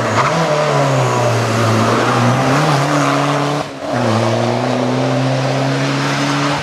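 First-generation Škoda Fabia rally car's engine running hard at speed, a steady high note with small dips. About three and a half seconds in it breaks off abruptly and comes back at a steady note.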